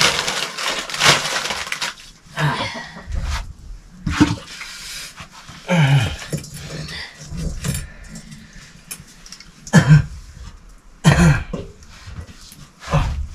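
Domestic animals calling about six times, each call short and falling in pitch. Metal cookware clinks and clatters as it is handled, most in the first two seconds.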